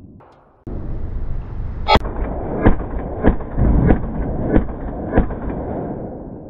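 Six 9mm gunshots about 0.6 seconds apart, echoing in an indoor range. The first, about two seconds in, is the loudest.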